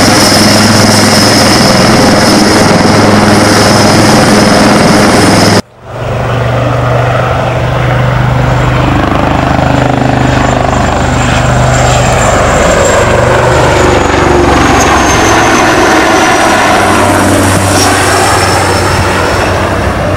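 HAL Light Combat Helicopter flying a display, its turbine whine and rotor noise steady and loud. The sound cuts out abruptly about six seconds in and comes straight back. After that a high whine slowly falls in pitch as the helicopter passes.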